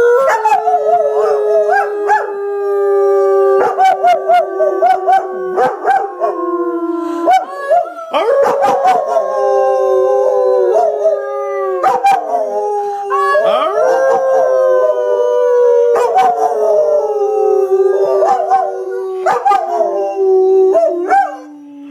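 A German shepherd-type dog and two people howling together like wolves: several long, overlapping howls that waver and slowly fall in pitch.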